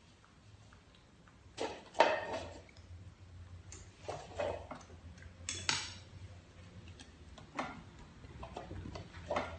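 Light, scattered taps of styrofoam cups being set down upside down on paper on a table, about six knocks spread over several seconds, the loudest about two seconds in.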